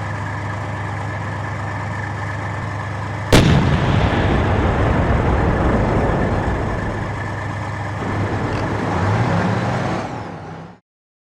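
Tank engine running with a steady low drone, then a single main-gun shot about three seconds in, followed by a long rumble as the engine keeps running and rises again near the end before fading out.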